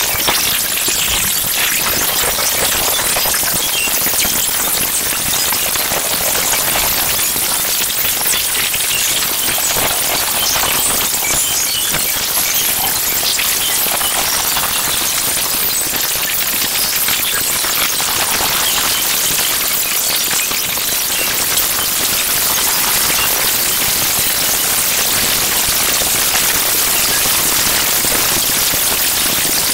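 Electroacoustic noise texture: a dense, steady hiss of fine crackles, mostly high-pitched with little low end, like rain or static.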